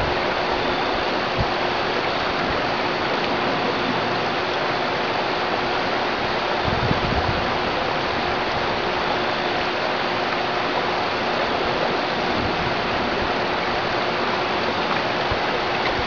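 Steady rush of flowing river water, an even hiss that does not change, with one brief low thump about seven seconds in.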